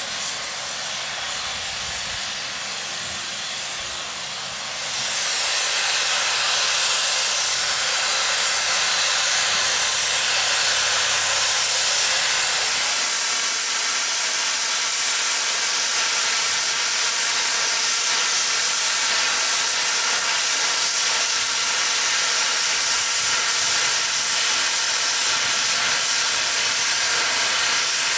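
Narrow-gauge steam locomotive venting steam in a steady loud hiss, which steps up louder about five seconds in and then holds.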